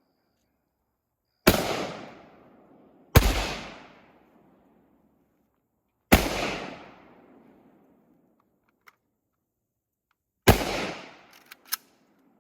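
Four rifle shots at uneven intervals, each followed by an echoing decay lasting about a second. A few short, sharp clicks follow near the end.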